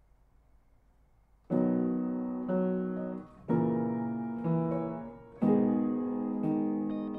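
A keyboard playing slow chords that ring and die away, a new chord about once a second, starting about a second and a half in after faint recording hiss: the instrumental opening of a song demo.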